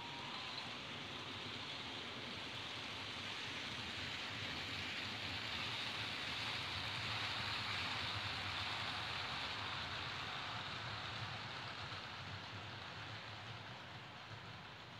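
H0-scale model ICE train running along the layout track: a steady rushing of wheels on rails and motor that swells to its loudest about halfway through as it passes closest, then fades toward the end.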